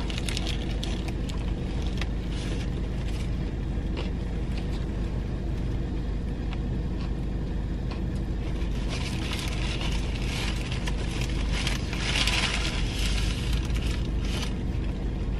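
Steady low hum of a car idling, heard inside the cabin, with scattered small clicks over it. A louder hiss rises about nine seconds in and fades again some four seconds later.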